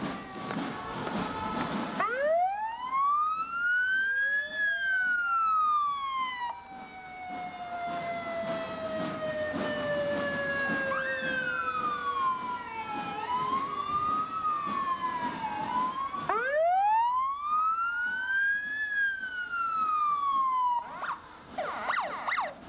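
Several ambulance sirens sounding at once. Twice, a wail climbs over two to three seconds and then falls away, while other sirens glide slowly downward beneath it and one wavers up and down in between. Traffic noise comes in at the start and near the end.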